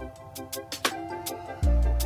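Background music: held notes with sharp drum hits. The deep bass drops out and returns about one and a half seconds in.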